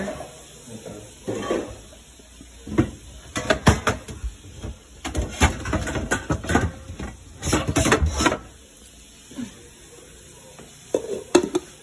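Stainless steel pots and glass lids clanking and knocking against each other as they are rummaged through in a kitchen cabinet: several bursts of clatter in the middle of the stretch.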